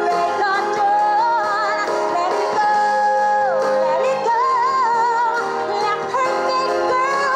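A pop song with a woman singing a melody with vibrato over instrumental backing, played back through a laptop's audio.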